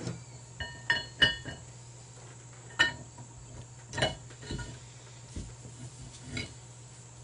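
Steel parts of a 24-inch pipe wrench clinking and knocking as the jaw piece is fitted back on: a few sharp ringing clinks about a second in, then scattered single knocks.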